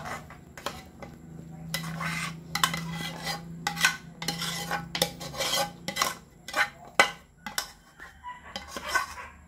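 Metal spoon scraping sticky cooked bukayo (coconut candy) out of a cooking pan: a run of short scrapes with sharp clinks and knocks of spoon against pan.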